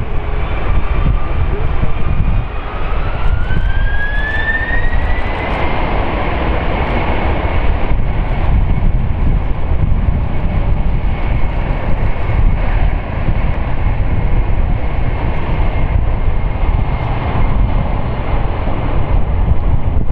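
Boeing KC-767's twin GE CF6-80C2B7F turbofans spooling up to takeoff thrust on the takeoff roll: a whine that rises over the first five or six seconds and then holds steady, over a heavy low rumble.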